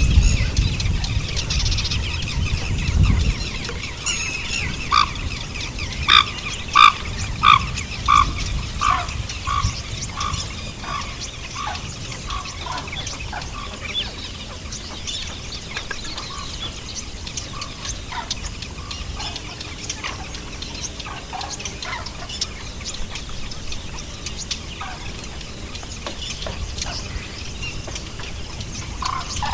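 A bird calling outdoors in a run of about a dozen short, evenly spaced notes, loudest at first and then fading. Underneath, light scraping and sizzling from a wooden spatula stirring spiced curd in hot oil in a clay pot.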